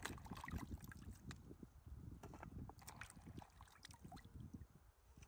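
Faint sloshing of water with many small clicks and knocks of handling.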